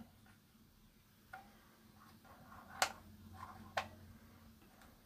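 Three faint, sharp clicks about a second apart, with a faint low hum between them: light taps and handling on the amplifier's circuit board as its parts are prodded.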